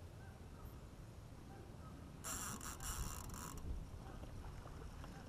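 Low outdoor rumble of wind and water around a small fishing boat. About two seconds in, a harsh rustling hiss lasts a little over a second.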